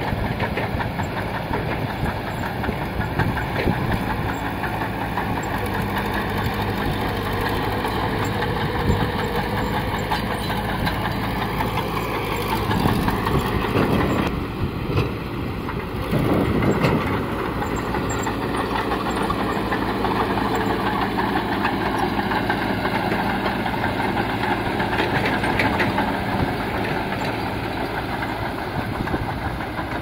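Small crawler bulldozer's diesel engine running under load as it pushes soil, with its steel tracks clanking; the sound changes briefly about halfway through.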